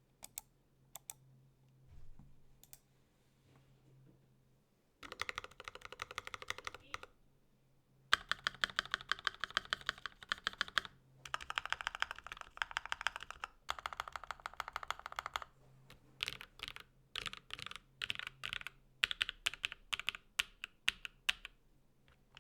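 Mechanical keyboard typing on a ZTBoards After 65% with lubed Konpeitou switches, an aluminum half plate and GMK Taro keycaps. A few single key presses come first, then fast runs of typing from about five seconds in, and slower, separate key presses in the last third.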